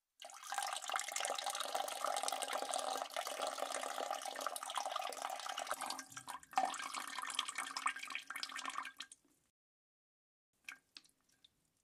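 A person peeing: a steady stream of urine splashing into water, faltering briefly about six seconds in and stopping after about nine seconds, followed by a few last drips.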